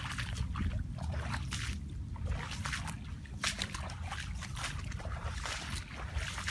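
Footsteps splashing and squelching through shallow muddy water and wet grass, as irregular wet steps, with grass swishing against legs.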